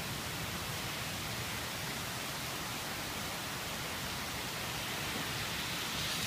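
Heavy rain falling on trees and grass, a steady even hiss that grows a little louder near the end.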